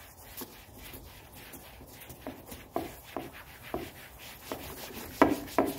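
Cloth wiping glass cleaner off a hard plastic seat-back panel: a series of short rubbing strokes that grow louder near the end.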